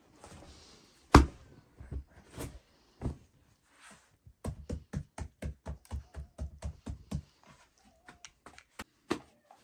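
Knocks and taps of hard objects. A single heavy thump comes about a second in, then a quick run of knocks, several a second, for nearly three seconds, then scattered lighter taps.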